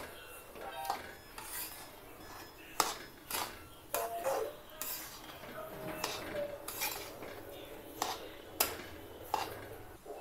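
Steel spoon stirring coarse semolina as it roasts in ghee in a steel kadhai, scraping the pan with irregular clinks against the metal.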